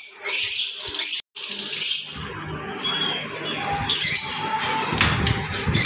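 Fischer's lovebirds, green birds, chattering with rapid shrill high-pitched chirps, loudest in the first two seconds with a sudden brief cut about a second in, then quieter calls.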